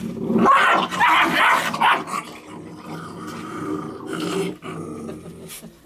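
Rottweiler puppies growling as they tussle over a toy. Loudest in the first two seconds, then a lower, steadier growl that stops near the end.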